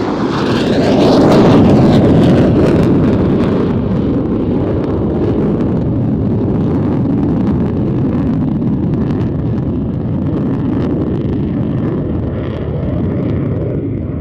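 Saab 37 Viggen's single Volvo RM8 turbofan jet engine during a display pass. A loud rush peaks about a second or two in with a falling pitch sweep, then settles into a long steady rumble with crackling.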